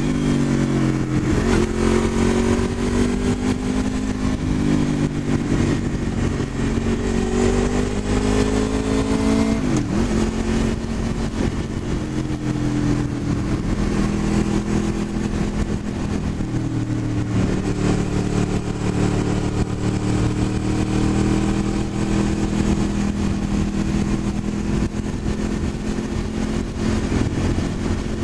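Honda VFR800's V4 engine pulling the motorcycle along at road speed. Its note wavers with the throttle, dips sharply about ten seconds in and then holds fairly steady, over a continuous rush of wind and road noise.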